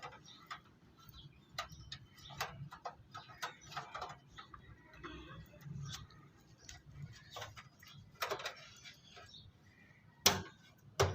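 Irregular light clicks and taps of desktop computer parts being handled and fitted, with a louder knock near the end.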